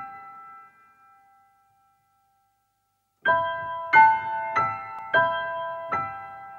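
Short keyboard intro jingle. A chord struck at the start rings out and fades, then after a pause of nearly two seconds five notes or chords are struck in quick succession, each left ringing.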